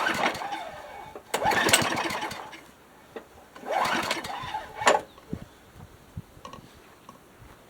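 Craftsman lawn mower's small engine being pull-started: three short cranking bursts about two seconds apart, then a click, the engine not catching and going quiet between pulls.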